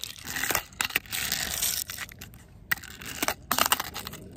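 Gritty scraping of a handboard's wheels and trucks over rough pavement, with several sharp clacks of the board.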